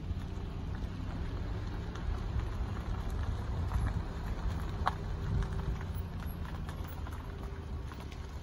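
Steady low rumble of an idling vehicle engine, with scattered faint clicks and one short higher-pitched chirp about five seconds in.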